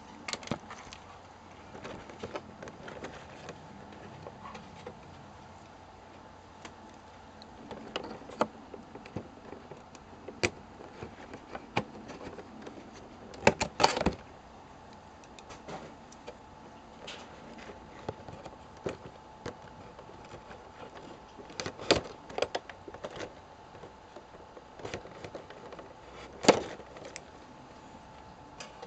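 Scattered clicks and light knocks of things being handled close to the microphone, with a short run of them about halfway through, over a faint steady hum.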